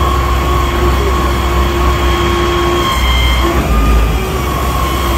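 Fire engine's pump and engine running hard while drafting water through hard suction hose: a steady loud rumble with a steady high whine over it. About three seconds in, one tone drops out and the rumble shifts.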